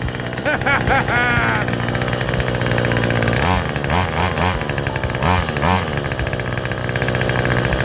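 Homelite two-stroke chainsaw engine running again on a newly fitted carburetor, the throttle blipped so the engine note rises and falls several times from about three and a half seconds in.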